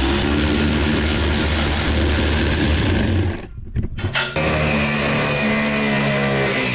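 A machine's motor running steadily, cutting out briefly about three and a half seconds in, then running again with a slightly wavering pitch.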